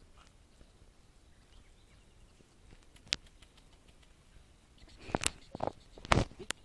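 Tall grass and brush rustling and crackling as it is pushed through, starting about two-thirds of the way in after a mostly quiet stretch, with a few sharper snaps among the rustles. A single sharp click sounds about halfway through.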